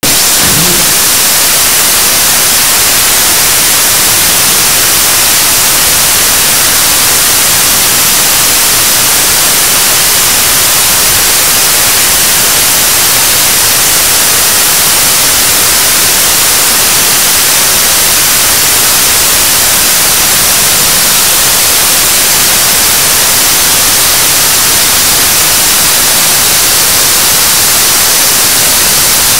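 7-tonne-class liquid rocket engine for the Korean launch vehicle's third stage firing on a test stand: a loud, steady, hissing rush of exhaust noise, unchanging throughout.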